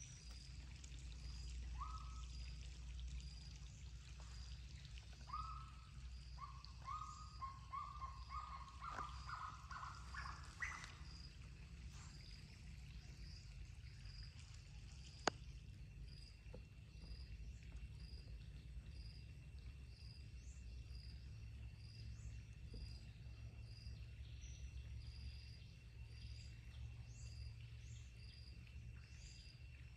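Forest ambience by a still pool. A bird gives a run of whistled notes that climb in pitch and quicken through the first third, while a short high chirp repeats about once a second throughout. From about halfway a steady high whine joins in, over a constant low rumble, with one sharp click.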